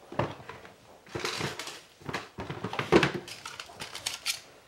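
Craft supplies being handled on a tabletop: irregular rustles and small knocks as foam pads are fetched, with the loudest knock about three seconds in.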